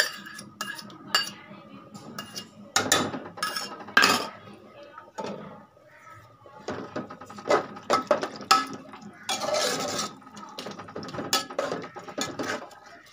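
A metal spoon clinking and scraping against a bowl and an aluminium cooking pot in irregular knocks as yogurt is spooned in and the curry is stirred.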